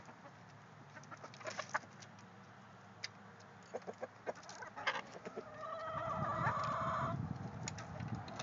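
Chickens clucking in short scattered notes, then one drawn-out call lasting over a second about six seconds in.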